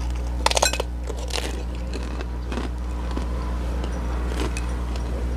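A crunchy bite into a burger topped with crisp chips: a burst of sharp crackling about half a second in, then a few softer, spaced-out crunches of chewing. A steady low hum runs underneath.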